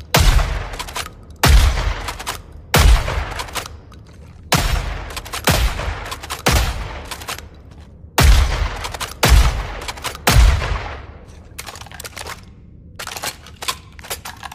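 Kel-Tec KSG pump-action 12-gauge shotgun sound effect: nine loud shots about one to one and a half seconds apart, each with a fading echo. A run of lighter clicks follows near the end.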